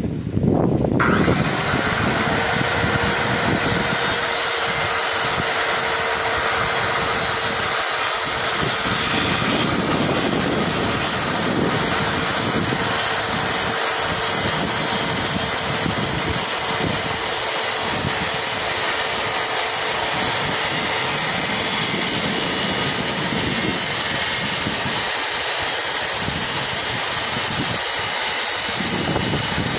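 Corded circular saw starting up about a second in and running steadily at one pitch as it cuts kerfs into thin birch plywood.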